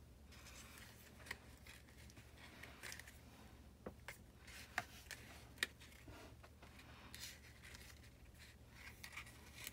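Faint rustling of paper as a pleated paper rosette is handled and pressed onto a paper straw, with a few light clicks and taps, over a low steady hum.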